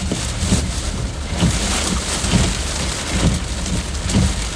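Heavy wind-driven rain on a vehicle, with a steady low rumble underneath and a regular knock a little under once a second.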